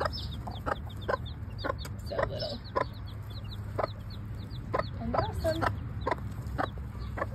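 Bantam mother hen giving short, low clucks every second or so while her chicks keep up a run of high, falling peeps several times a second.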